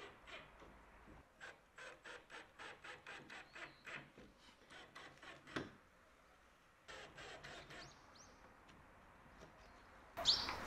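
Faint rhythmic strokes of hand work on a wooden shed door, about three a second in two runs, with one sharper knock about halfway. A louder burst of noise comes at the very end.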